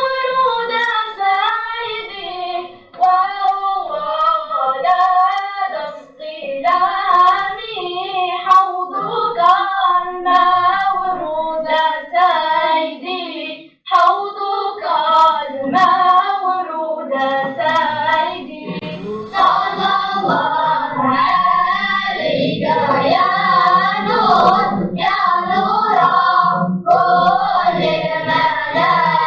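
A group of children singing a Sufi devotional song in unison, with sharp claps now and then.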